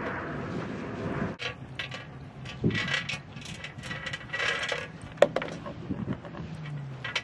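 Metal leash chain and dog collars jingling and clinking irregularly as two Siberian huskies move about on their tethers, with one sharp clink about five seconds in. Wind on the microphone at the start drops away about a second and a half in.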